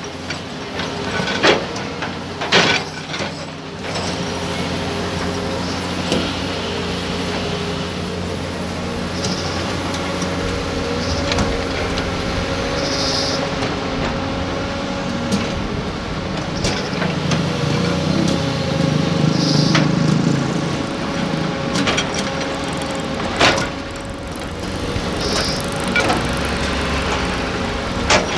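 Doosan DX220A hydraulic excavator's diesel engine running steadily under digging load, its note rising and falling with the work and loudest about two-thirds of the way through. Sharp clanks and knocks of the bucket and rocks come now and then, most of them in the first few seconds.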